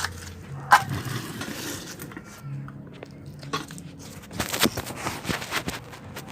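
Sharp clicks and clinks of small hard objects being handled, with one loud knock about a second in and a quick run of them past the middle.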